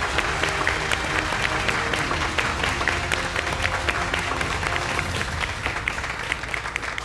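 Group of people applauding, a dense steady clatter of hand claps, with background music playing underneath.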